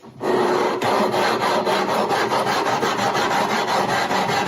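80-grit sandpaper on a radiused aluminium neck sanding block scraping steadily over a wooden guitar neck, starting a moment in. This is the final shaping stage, taking out the low spots and tool marks left by the rasp.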